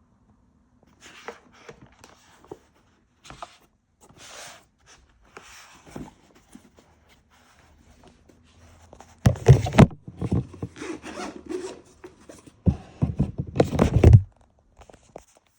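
GoPro Hero 13 Black packaging being opened and handled: short scattered rustles and scrapes. About nine seconds in, and again about thirteen seconds in, come two louder, denser stretches of scraping and rustling.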